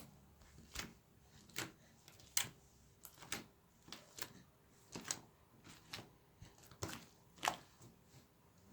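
Homemade slime being kneaded by hand, giving a string of short sticky clicks and snaps about once a second as it is pressed and pulled.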